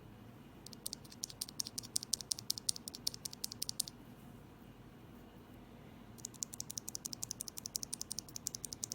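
Lubed Kailh Box Heavy Burnt Orange tactile keyboard switches being typed on in two runs of rapid keystrokes, with a short pause between. The switches are lubed with Krytox GPL 205 grade 0.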